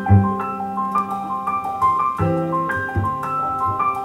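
A recorded song playing through Acoustic Zen floor-standing loudspeakers driven by Triode tube amplifiers, in an instrumental passage between sung lines: a piano melody of struck, fading notes over held bass notes.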